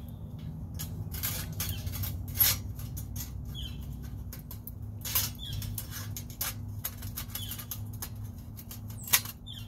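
Thin stainless steel plates clicking and scraping against the panels of a folding stainless steel wood stove as they are fitted over its side vent holes. There are sharper clicks about two and a half, five and nine seconds in.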